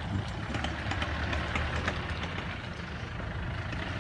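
A large off-road truck's engine running steadily, its sound mostly low-pitched, with a few light clicks in the first two seconds.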